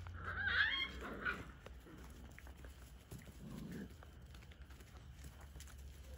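A whippet puppy gives a high, wavering squeal lasting about a second at the start, followed a couple of seconds later by a short, low growl, typical of puppies playing rough.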